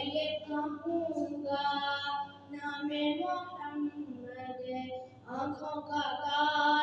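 A boy singing a naat, an Urdu devotional poem in praise of the Prophet Muhammad, solo without instruments, in long held melodic phrases with a short breath pause about five seconds in.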